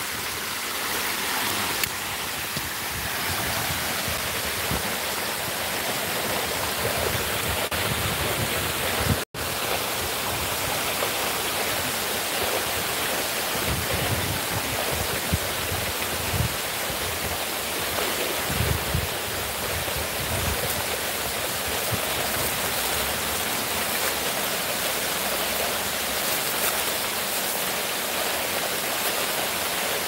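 Water of a stepped cascade fountain spilling steadily down stone steps into a shallow pool. The sound cuts out for an instant about nine seconds in.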